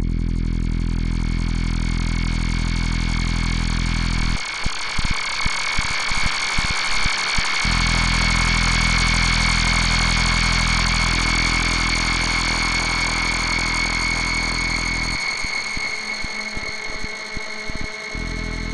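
Sequential Circuits Pro-One analog synthesizer holding a steady, engine-like drone with a bright high tone above it. Its low end stutters rapidly on and off in a run about four seconds in, and again near the end.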